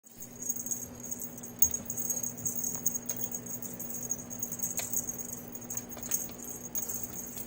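A small bell jingling on and off with light clicks and taps, over a faint steady low hum.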